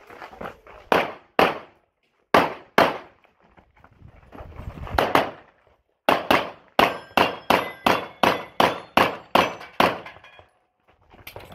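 Handgun shots fired outdoors: a few pairs of shots with short pauses between them, then, after a gap of a couple of seconds, a fast string of about a dozen shots at roughly three a second.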